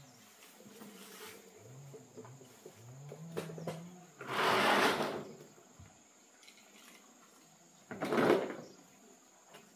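Two brief scraping, rattling noises of tools being rummaged in a toolbox, about four seconds in and again near eight seconds, the first the longer.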